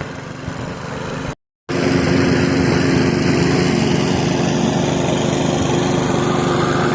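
PowerSmart push mower's small engine running steadily under load. It cuts out abruptly for a moment about a second and a half in, then comes back louder and steady.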